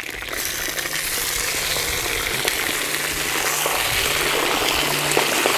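Pork ribs sizzling as they fry in a hot kazan cauldron, the sizzle building over the first second or two and then holding steady.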